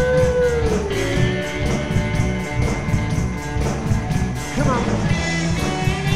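A live rock band playing with electric guitars, bass and a drum kit with a steady cymbal beat and a singer. A long held note slides down about a second in, and bending guitar notes come near the end.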